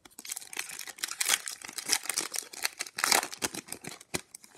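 A Fleer Ultra hockey card pack wrapper being torn open and peeled back by hand: a continuous crackling crinkle, loudest about a second, two seconds and three seconds in.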